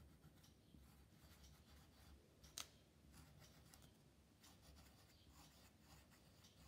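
Faint scratching of a pencil on paper as a word is written by hand, with one sharper tick about two and a half seconds in.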